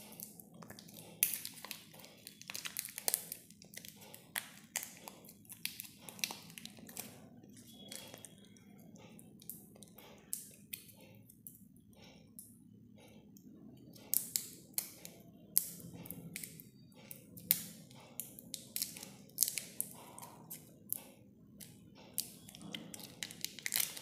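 Foil wrapper being peeled and crinkled off sticks of two-part epoxy putty by hand: irregular crackles and ticks, busier about two-thirds of the way through.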